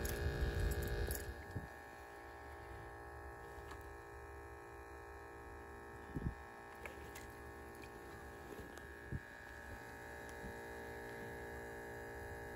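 Small battery-powered aerator air pump in a fishing bucket, running with a steady electric hum. There is a short sharp splash about six seconds in, as a small horse mackerel is dropped into the water, and a lighter knock a few seconds later.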